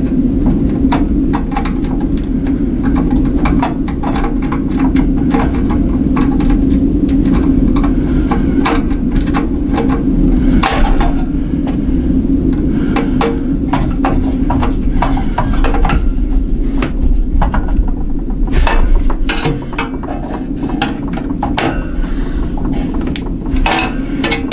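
Hardware being handled during a GPU mining rig build: many sharp clicks and knocks, some close together, over a steady low hum.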